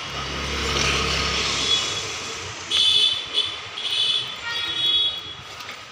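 Road traffic: a vehicle rumbles past, then several short, high-pitched beeps sound from about the middle onward.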